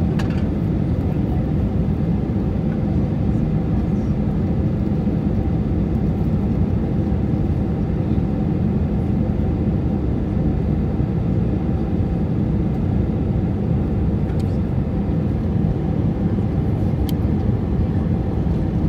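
Steady engine and airflow noise heard inside the cabin of an easyJet jet airliner on final approach: a constant low rumble with a faint steady hum above it.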